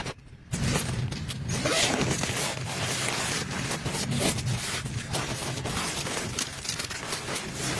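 A tent zipper being pulled, a dense rasping run of many quick strokes that starts about half a second in.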